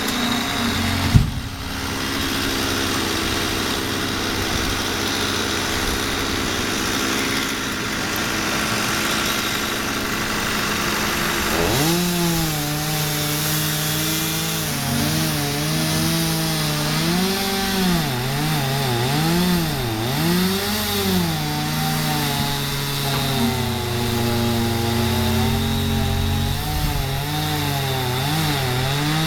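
Chainsaw running over a steady engine drone. From about twelve seconds in its pitch repeatedly rises and drops as it revs and bogs in the wood while cutting. A sharp knock about a second in.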